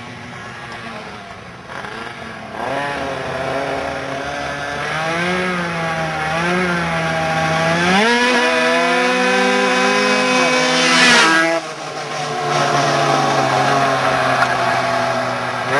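High-revving two-stroke engines of a 70cc Italkit-tuned Yamaha Aerox scooter and an Aprilia RS 125 being ridden hard. The pitch wavers up and down, then climbs and is held high for a few seconds. It cuts off sharply a little past the middle, then picks up again and slowly falls away.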